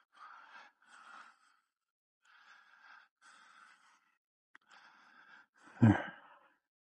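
A man breathing audibly, a few faint breaths about a second apart, then one louder, short sigh near the end.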